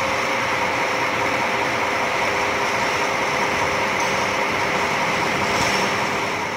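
A parked coach's diesel engine idling steadily: a constant running noise with a few held tones that do not change.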